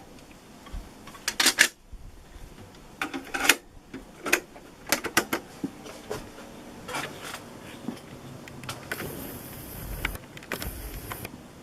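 Plastic clicks and clacks from the cassette deck of an Aiwa CDS-A190 boombox, as a tape is swapped and the deck's keys are pressed: a scattered series of sharp clicks, then a short stretch of hiss near the end.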